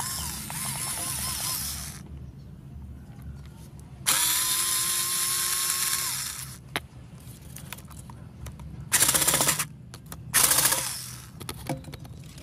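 Cordless drill-driver backing screws out of an angle grinder's gear housing, in several separate runs: one at the start, a longer steady whine from about four to six seconds in, and two short, louder rattling bursts near the end.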